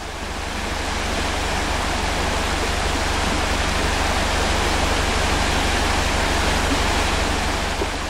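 Steady loud rushing of river water, with a low rumble underneath. It swells up at the start and dies away near the end.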